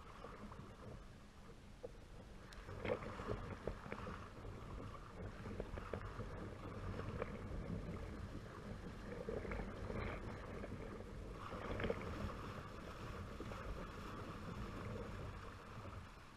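Kayak paddle blades dipping and splashing in choppy water, with waves slapping against the hull in irregular splashes, the loudest about three seconds in and again near twelve seconds.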